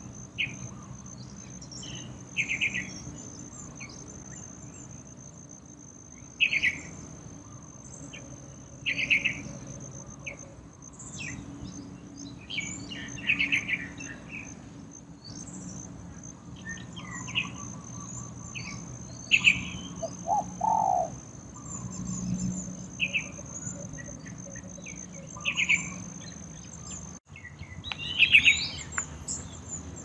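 Short chirping bird calls, a note or short cluster every second or two, with a lower call about twenty seconds in. Under them runs a steady high-pitched insect drone, with a low background rumble.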